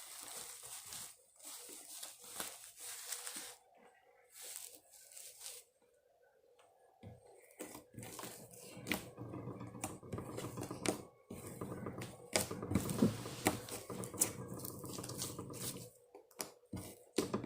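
Slime being squished, poked and stretched by hand, giving crackling, tearing sounds and sharp pops. From about seven seconds in, a steady hum runs underneath.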